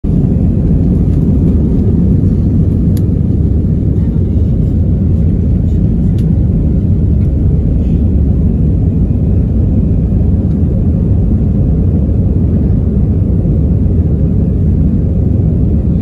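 Jet airliner cabin noise: a steady, loud low rumble of engines and airflow as the plane climbs after takeoff.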